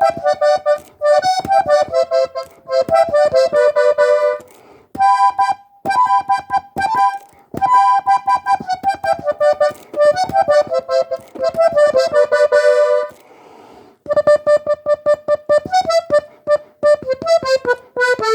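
Diatonic button accordion tuned in G playing a cumbia melody alone, in short phrases of quick notes with brief pauses and a longer pause about two-thirds of the way through.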